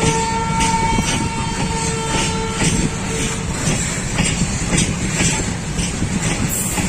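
A train rolling past, its wheels clattering over the rail joints in a steady rhythm of about two knocks a second over a continuous rumble. For the first three seconds or so a steady high tone sounds over it.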